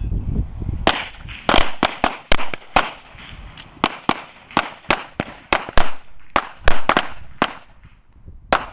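Handguns firing a rapid, irregular string of about twenty shots, some close together, stopping about seven and a half seconds in, with one last shot near the end.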